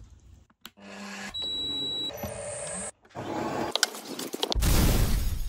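A quick series of short workshop sounds with abrupt cuts between them: a machine running with a steady high whine, then rubbing and scraping with a few clicks, ending in a loud rush of noise.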